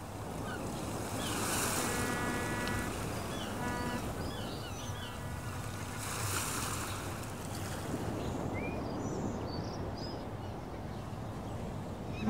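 Ocean waves washing in, swelling twice, with scattered bird chirps above them.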